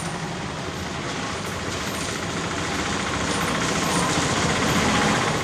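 Small three-wheeler engine running close by, a steady hum that grows a little louder toward the end.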